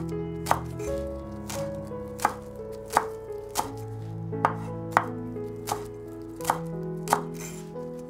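Knife chopping on a cutting board: single sharp cuts, irregular, roughly one every half second to second, over background music with held notes.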